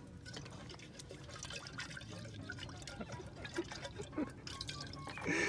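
Light clinks and taps of a metal camping kettle and its lid being handled, with water dripping and sloshing in it. A brief louder sound comes near the end.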